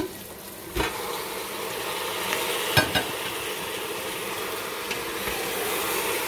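Raw chicken pieces tipped into a pot of hot oil: a thump about a second in as they land, then steady sizzling as a wooden spoon stirs them. Two sharp knocks come near the middle.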